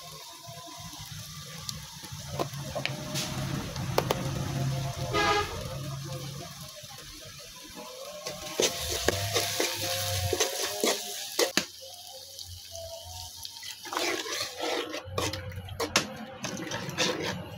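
Onion and spice masala sizzling in oil in an aluminium pan. A metal spoon taps and scrapes against the pan as ground spices are added and the masala is stirred.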